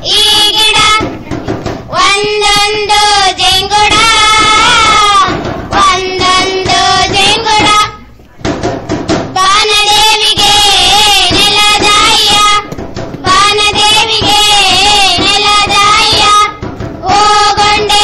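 Children singing a song in long phrases with held, wavering notes, with a short break about eight seconds in.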